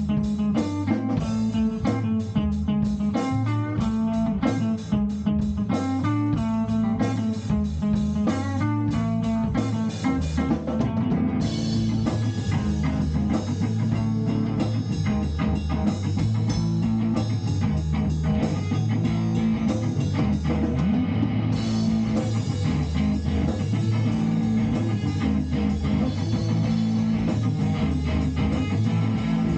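Instrumental band music: guitar playing picked notes over a steady low line, with drums. About a third of the way in, the sound thickens with a constant high cymbal-like wash.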